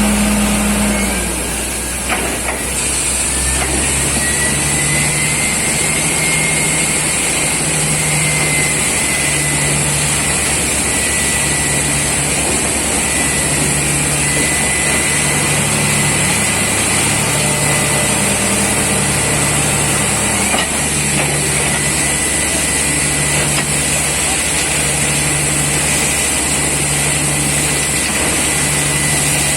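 Borewell drilling rig running steadily, with an engine drone, a high hiss and a thin whistle. Under it a low hum steps up and down in pitch about every second.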